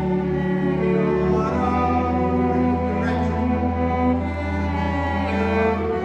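A string orchestra playing slow, held notes, with one bowed string instrument close by and a sustained low note from the low strings underneath that changes about a second and a half in.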